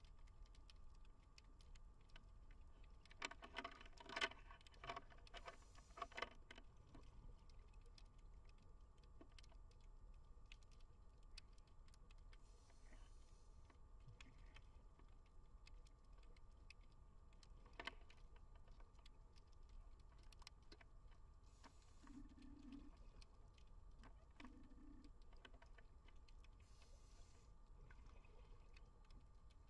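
Faint underwater ambience: scattered clicks and crackles over a faint steady hum, with a cluster of louder clicks a few seconds in and a single sharp click past the middle. Short soft hisses come every six seconds or so.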